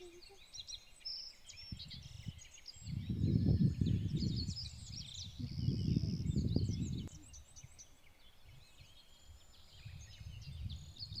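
Many small birds chirping and calling in short, quick notes, with wind buffeting the microphone in low rumbling gusts, the strongest about three and about five seconds in.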